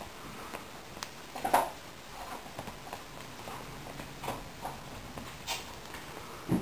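Irregular soft thumps and taps from an Exotic Shorthair kitten pouncing and scrambling on a bedspread after a feather wand toy, the loudest knock about a second and a half in.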